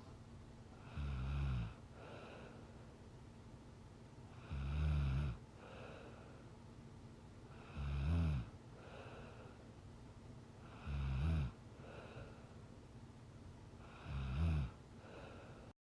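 A sleeping young woman snoring: five short, low snores at a steady rhythm of about one every three and a half seconds, each followed by a softer breath, over a faint steady hum.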